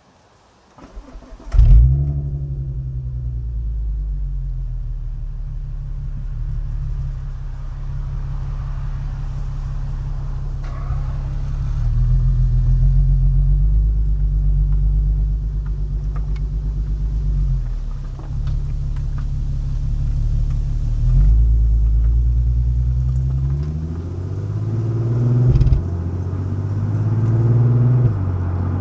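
Volkswagen Passat 3.2 FSI VR6 engine heard through a front-resonator-delete exhaust with an OEM R36 cat-back, starting up about a second and a half in with a brief loud flare. It then runs with a deep, steady exhaust note that rises and falls in pitch several times, with a sharper rise cut off a few seconds before the end.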